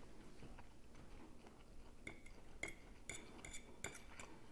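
Faint clinks of a metal fork tapping and scraping on a dinner plate while picking through a fish fillet: about five or six light, ringing taps in the second half.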